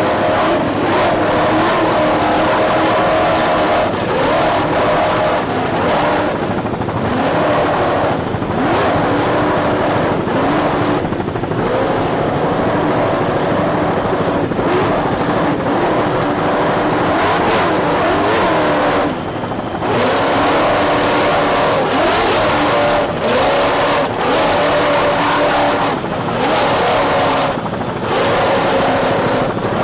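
Offshore racing powerboat engines running hard, their pitch rising and falling, with a brief drop in level about two-thirds of the way through.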